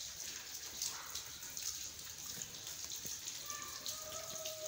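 Rain pattering and dripping on wet concrete: a steady hiss of drops with many small irregular ticks.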